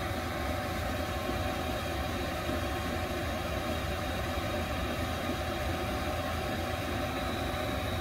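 Chinese diesel air heater running at full output: a steady, even whir of its blower and burner.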